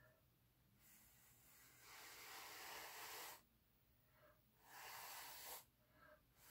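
Faint breathing close to the microphone: one long breath, then two shorter ones.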